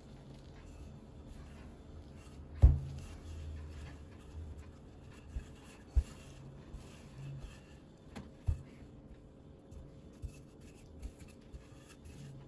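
Wooden rolling pin rolling out floured dough on a wooden tabletop: low rolling rumbles and rubbing, with a few sharp knocks of the pin against the table, the loudest about two and a half seconds in.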